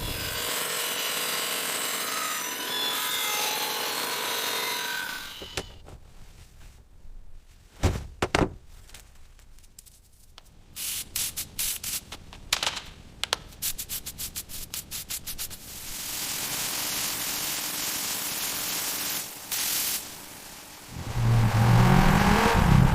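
A run of car-restoration workshop sounds: scraping and sanding noise, two sharp knocks, a rapid series of clicks, and a steady hiss. Near the end a car engine starts and runs.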